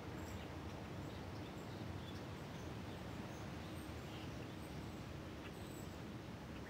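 Faint outdoor ambience: a steady background hiss with a few scattered, distant bird chirps.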